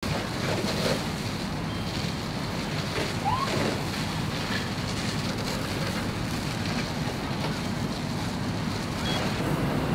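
Steady rushing spray of high-pressure fire hoses pouring water onto a burned-out fuel tanker, over a low steady hum.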